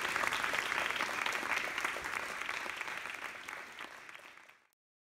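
Audience applauding, a dense patter of hand claps that gradually fades and cuts off to silence about four and a half seconds in.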